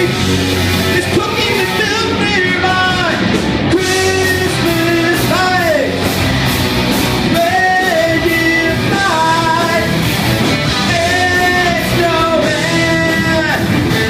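Live heavy rock band playing loudly: distorted electric guitars, bass and drums, with a lead melody of held notes that bend in pitch.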